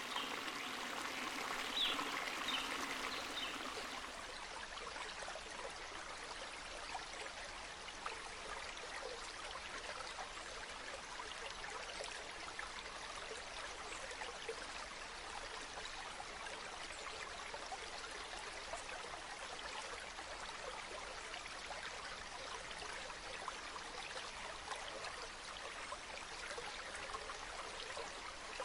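Running water trickling and splashing steadily, with fine droplet splashes through it. About four seconds in it drops to a quieter, more even flow.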